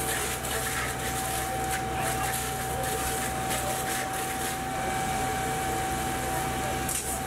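Steady drone of a fire engine's motor and pump running at the fire ground, with a single steady high whine over it that stops near the end, and a hiss of noise throughout.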